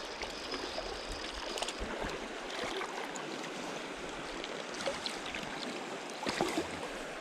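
Creek water running steadily over rocks, with a few brief louder sounds about six seconds in.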